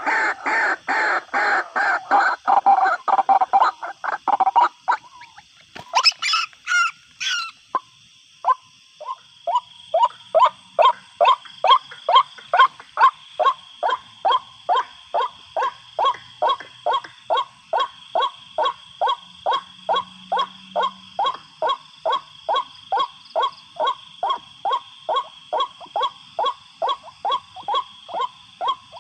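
White-breasted waterhen calls. A dense run of rapid croaking calls comes first, then a few high squeals about six seconds in, then a long, even series of short repeated notes, about two a second.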